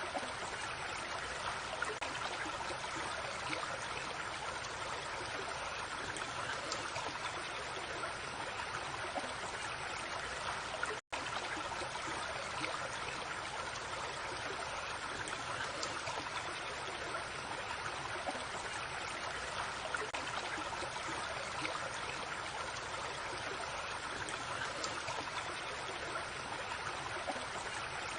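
Brook flowing, a steady even rush of running water. The sound cuts out for an instant about eleven seconds in.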